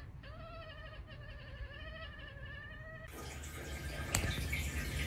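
Orange tabby cat letting out one long, wavering meow lasting about three seconds. It breaks off into a steady hiss and low rumble, with a single sharp click about a second later.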